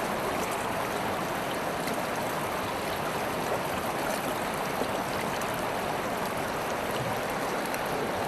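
River water flowing steadily, a continuous rushing with small splashes and trickles in it.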